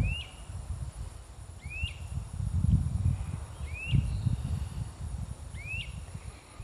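An unidentified animal's short high-pitched call, a quick upward sweep that bends back down, repeated four times about every two seconds, over a low, uneven rumble.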